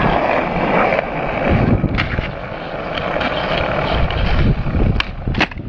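Skateboard wheels rolling on rough asphalt, a steady gritty rumble, with sharp clacks of the board about two seconds in and twice near the end.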